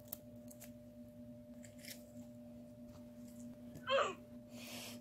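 Faint sticky clicks of watery slime being stretched and pulled between fingers, over a steady hum. About four seconds in, a short Roblox "oof" sound effect cuts in and is the loudest thing.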